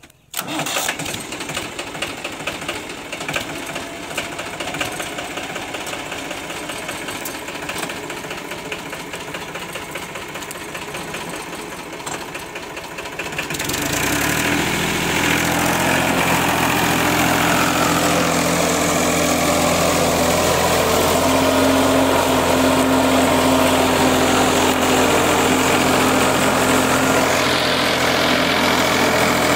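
Farmtrac 435 tractor's diesel engine starting about a third of a second in, then running at idle with a rapid knock. About halfway through it speeds up and runs louder and steadier as the tractor moves off across the field under load.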